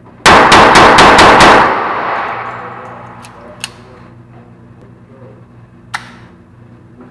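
Raven .25 Auto pocket pistol fired about six times in rapid succession, each shot ringing on in the echo of an indoor range. This is followed by a few small metallic clicks as the pistol is handled.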